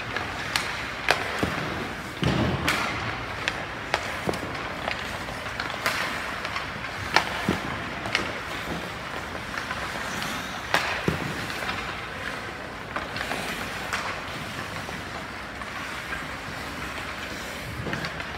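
Scattered sharp knocks and thuds at irregular intervals, a few much louder than the rest, over a steady background noise.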